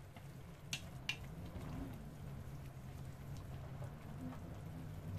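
Tomato sauce simmering in a metal pan, with faint bubbling and popping over a low steady hum. Two sharp taps about a second in, as wooden chopsticks knock against the pan at the end of the stirring.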